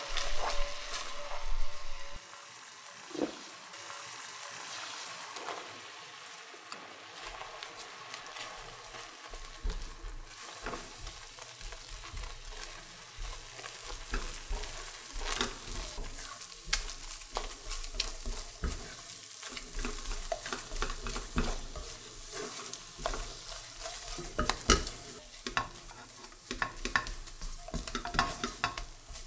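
Silicone spatula stirring and scraping choux paste in a stainless steel pan on the burner. Butter, water and flour sizzle steadily, with many small clicks and scrapes of the spatula against the pan. The loudest sizzle comes in the first two seconds, while the liquid is still melted butter. The dough is being cooked through (the gelatinising step of choux paste).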